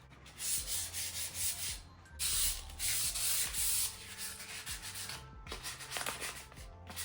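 400-grit sandpaper rubbing over a primed steel bike frame in separate passes, louder in the first few seconds and lighter after that: the primer is being scuffed to knock the shine off before the colour coat.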